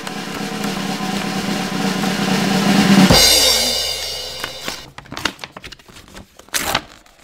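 Snare drum roll building in loudness for about three seconds, ending in a cymbal crash that rings away. Then short paper rustles as an envelope is opened.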